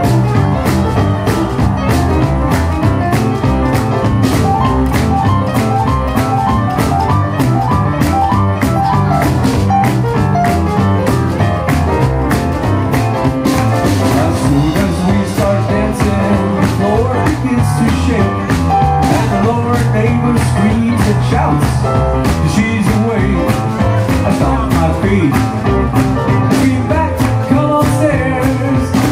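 Live rock and roll band playing a boogie-woogie number with a steady beat: electric guitar over upright double bass and a drum kit.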